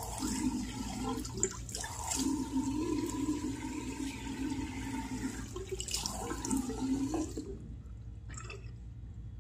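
Water running from a tap into a sink partly full of water, a steady splashing and gurgling. It stops abruptly about seven and a half seconds in.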